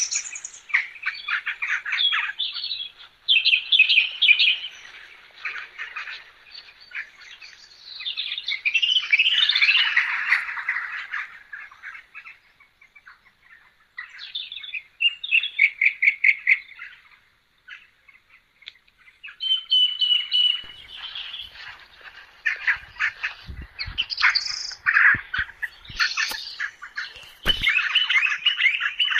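Birds chirping, calling in quick trills and short phrases that come in bursts with brief pauses between, with a few low knocks near the end.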